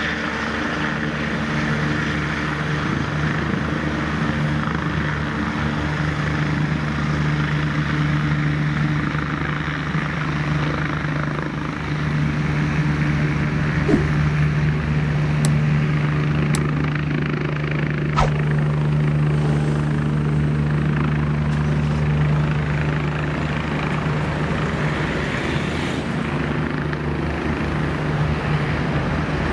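Airbus EC145 twin-turbine helicopter hovering low and setting down, its turbines and rotor running steadily. A few faint sharp clicks come about halfway through.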